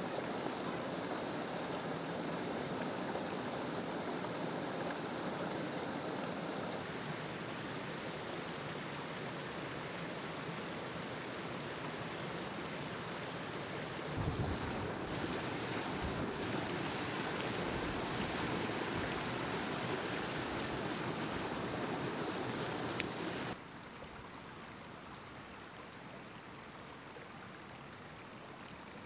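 Shallow mountain stream running over rocks: a steady rush of water, with wind buffeting the microphone through the middle stretch. About three-quarters of the way in it cuts to a quieter, steady high-pitched buzz.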